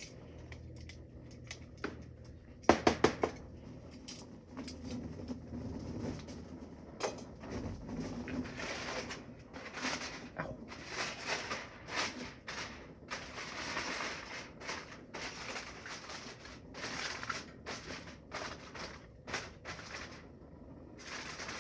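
Handling and clattering of cooking gear: a quick run of sharp knocks about three seconds in, then irregular scraping and rustling noises.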